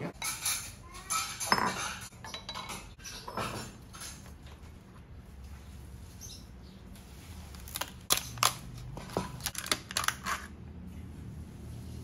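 Clicks and crackles of a clear plastic yogurt tub being handled and its snap-on hinged lid pulled open, in two clusters of sharp clicks with quieter handling between.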